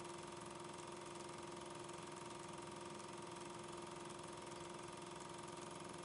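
Steady mechanical hum: a constant low tone with a higher one above it over a faint even hiss, with no chuff or whistle of a steam locomotive. It is the running noise of the film transfer, not sound from the scene.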